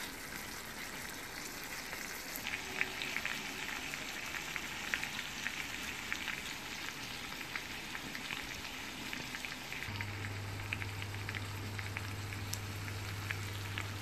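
Hilsa fish steaks frying in a pan of oil and spiced sauce: a steady sizzle with frequent crackling pops. A low steady hum comes in about ten seconds in.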